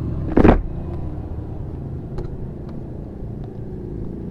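Kawasaki Ninja SS 150's single-cylinder two-stroke engine idling steadily, with one loud short knock about half a second in and a few light clicks later.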